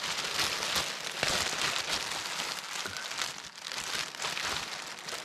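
Thin black plastic garbage bag crinkling and rustling steadily as it is worn and arms are worked through holes in its sides.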